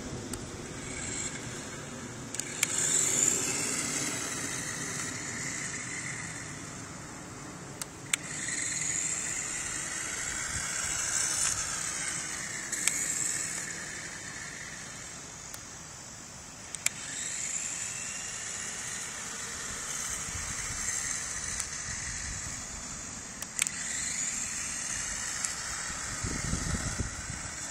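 Tyco Twin Turbo Aero Hopper radio-controlled toy buggy's electric motor whining in repeated swells, its pitch rising and falling as the buggy speeds up and slows on asphalt. A few sharp clicks come through.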